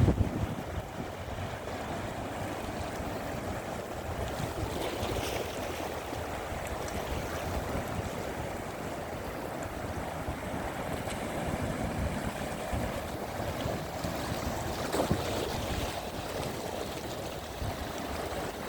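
Sea waves washing onto the shore in a steady rush, with a slightly louder surge about five seconds in and again near fifteen seconds.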